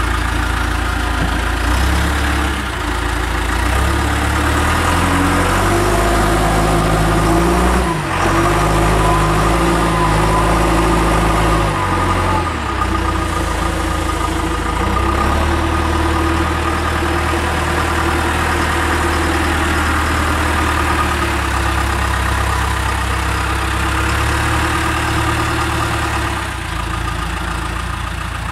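Backhoe loader's diesel engine running. Its note shifts up and down for the first dozen seconds or so, with a brief dip about eight seconds in, then holds steadier and eases down near the end.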